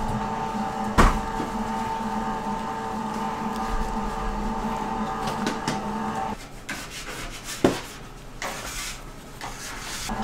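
An electric motor hums steadily, then cuts off about six seconds in and starts again near the end. A sharp knock comes about a second in and another louder one after the hum stops, with some clattering after it.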